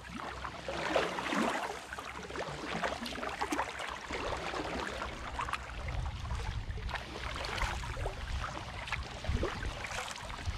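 Kayak paddle strokes splashing and dripping in lake water, irregular splashes over a steady low rumble.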